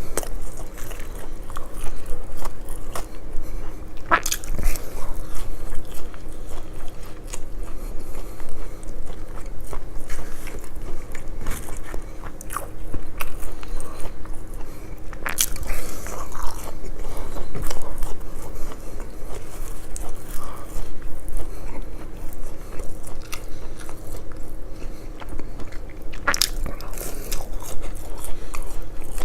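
Close-miked eating of McDonald's fish and chips: continual wet chewing and small crackles, with a few sharper crunchy bites roughly ten seconds apart.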